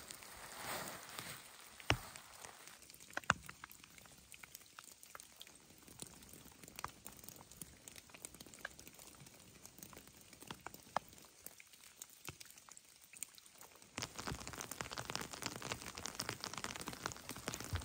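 Rain falling: scattered drops ticking and tapping, turning into a louder, denser patter about three-quarters of the way through.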